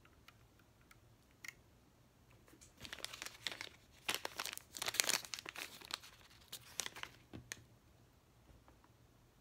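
A few light clicks, then several seconds of crinkling and rustling from a plastic wrapper being handled, loudest in the middle.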